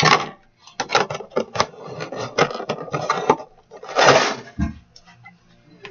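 Slime containers being handled: a run of clicks and knocks as lids and tubs are moved about, a short rushing scrape about four seconds in, then a dull thud as one is set down.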